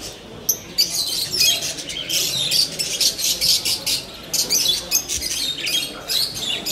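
Many caged live birds chirping together in a dense, unbroken twitter of quick high calls.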